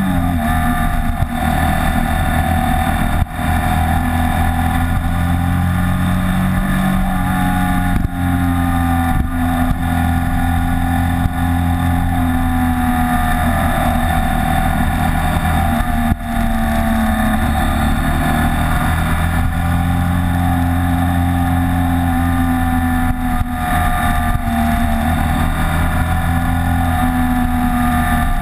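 BMW K75's three-cylinder engine running under way, its note rising and falling as the throttle is worked, with a few brief dips in level.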